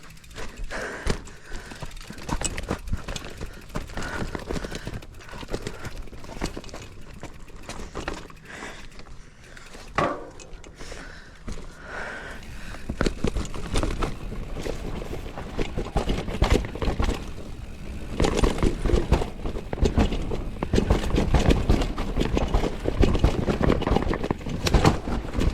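Mountain bike rattling and clattering over a rough, technical dirt trail: tyres rolling on dirt with irregular knocks from the frame, chain and suspension. It gets louder and rougher about halfway through as the riding speeds up.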